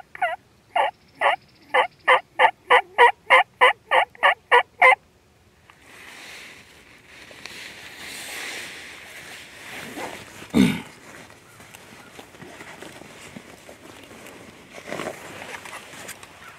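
Run of about a dozen loud wild turkey yelps in the first five seconds, each a short downward-sliding call, coming faster toward the end. A single low thump follows about ten and a half seconds in.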